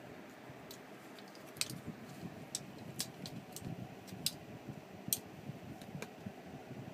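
A Scottish Fold cat batting and clawing at a brush while rolling on a rug: soft rustling, broken by about seven sharp, irregular little clicks and ticks.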